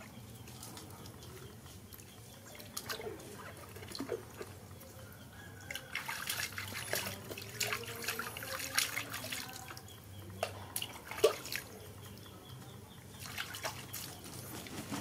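Bath water splashing and dripping in a plastic tub as a hand scoops it over a baby monkey. The splashes come in irregular bursts, busiest around the middle and again near the end.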